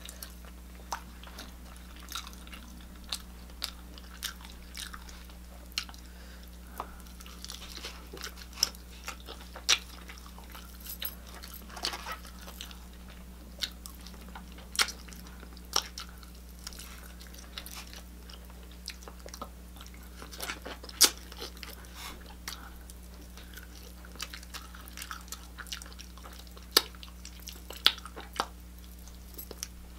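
Close-up mouth sounds of a person biting and chewing chicken wings, with irregular sharp crunchy clicks throughout, over a steady low hum.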